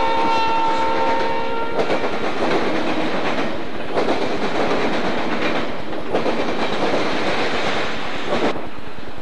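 Diesel freight locomotive's air horn holding a steady chord, cutting off about two seconds in; then freight cars rolling past with steady wheel-on-rail rumble and clatter, which stops abruptly near the end.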